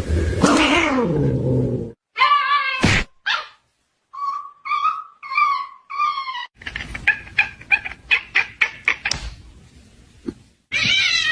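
Pet dog and cat calls in several short clips cut together, among them four short high calls in a row. This is followed by a run of quick knocks, about five a second.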